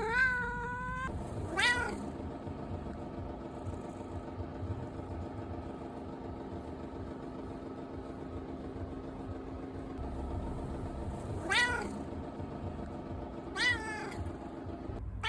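Domestic cat meowing: a pair of meows near the start, then after a long pause two more near the end, each call rising then falling in pitch.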